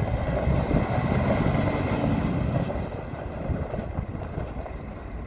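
2015 Scania R410 tractor unit's six-cylinder diesel engine pulling away, loud at first and fading off after about three seconds as the truck moves away.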